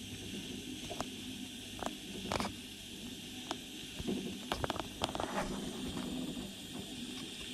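Soldering iron tip working against the starter solenoid terminal of a Yanmar 4JH diesel, giving scattered light clicks and scrapes, with a brief crackle about two seconds in and a cluster of clicks past the middle, over a steady low hum and hiss.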